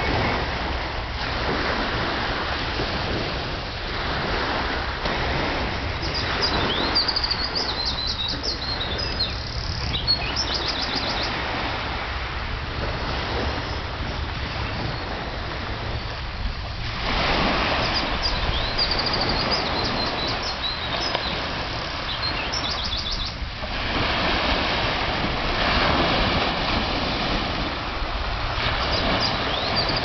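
Sea waves washing on the shore, swelling and easing every few seconds, with small birds chirping and trilling high above in several short spells.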